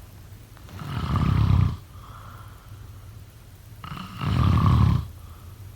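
A person snoring: two loud snores about three seconds apart, each lasting about a second and swelling in loudness.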